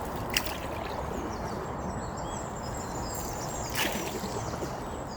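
A canoe being paddled: paddle strokes and water splashing and trickling, with two sharper splashes, one just after the start and one near the end, over a steady low rumble.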